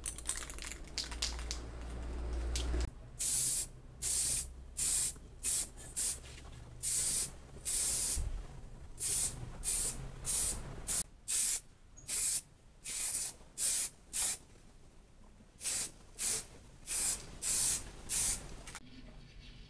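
Aerosol spray can of clear top coat hissing in short bursts, about twenty of them, each under a second, as the lacquer goes onto a bicycle frame and fork.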